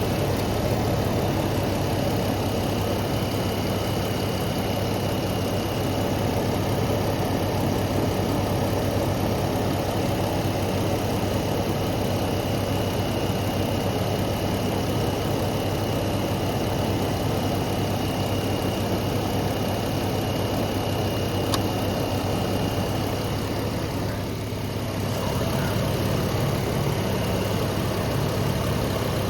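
Jeep engine idling steadily with the air conditioning running, heard close up. A single sharp click comes about three-quarters of the way through, and the sound dips briefly soon after.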